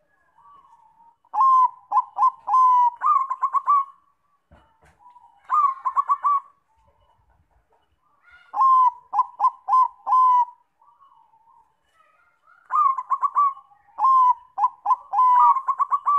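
Zebra dove (Bangkok-type perkutut) singing its cooing song: four phrases of quick staccato coos, each a couple of seconds long, with softer, fainter notes in the pauses between.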